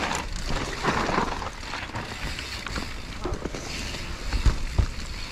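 Mountain bike riding fast down a dry, leaf-strewn dirt trail: tyres rolling over dirt and leaves, wind rushing on the microphone, and the bike rattling over the bumps, with a couple of sharp knocks about four and a half seconds in.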